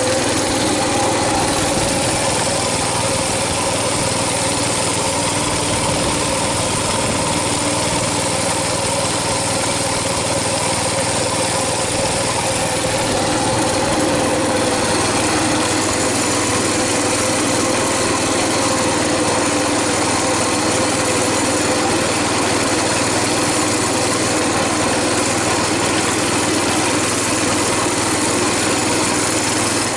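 Coleman BT200X mini bike's 196cc single-cylinder four-stroke engine running steadily at light throttle while the bike is ridden, its pitch holding even with no revving.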